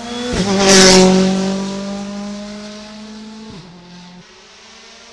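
Ford Fiesta rally car's engine pulling hard as the car passes close by. It is loudest about a second in, then fades as the car goes away, and the engine note drops sharply about three and a half seconds in.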